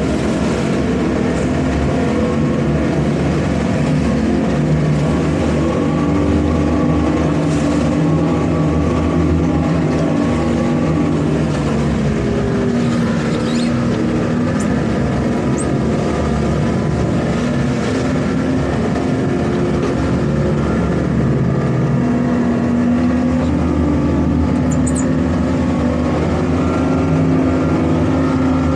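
Twin outboard engines of a towboat running steadily under load while pulling a grounded sailboat on a tow line, a continuous droning hum with water rushing in the wake.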